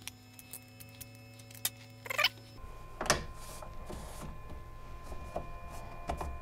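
Small plastic clicks and taps as a flexible 3D-printer build plate and a plastic scraper are handled, then the plate is pushed back onto the Flashforge Adventurer 3's print bed with a knock about three seconds in, followed by more light clicks.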